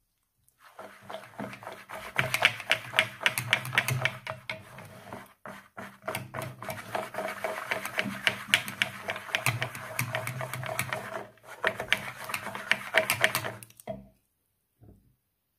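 Stainless wire whisk beating a thin fritter batter in a glass bowl: fast, uneven clicking of the wires against the glass with a wet swishing. It pauses briefly twice and stops near the end.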